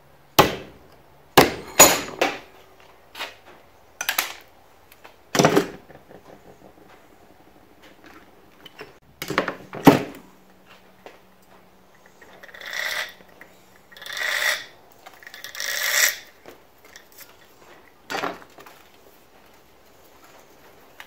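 Claw hammer striking a small copper-wound coil at a bench vise, about nine sharp metallic blows in uneven bursts over the first ten seconds. Then come three longer scratchy rasps of about a second each and one last knock.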